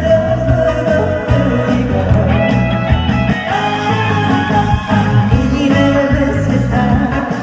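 A woman singing a song live through a PA, over amplified music with a steady beat.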